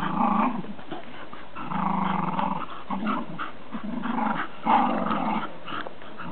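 Dogs play-growling in repeated bouts during a tug-of-war over a ring toy, with about six growls, each half a second to a second long and separated by short gaps.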